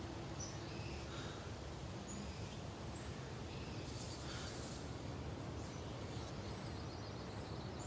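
Faint outdoor ambience: a low, steady background with scattered, distant bird chirps every second or so.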